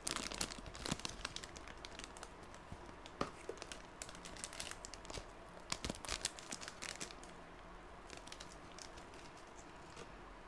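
Thin clear plastic polybags crinkling and crackling as they are handled. The crackling is dense at first and thins out after about seven seconds.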